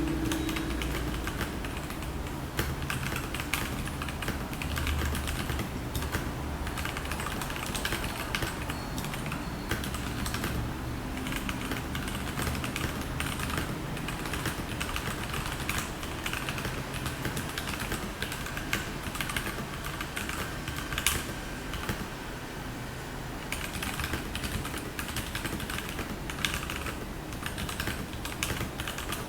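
Continuous typing on a Royal Kludge RK84 mechanical keyboard with stock Gateron Yellow linear switches and ABS double-shot keycaps: a fast, uneven stream of key clacks, with one louder stroke about 21 seconds in.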